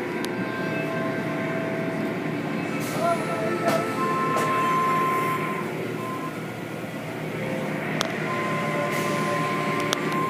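Automatic tunnel car wash running: a steady mix of machinery hum, spraying water and cloth brushes working over a car, with a few held whining tones and occasional clicks and knocks.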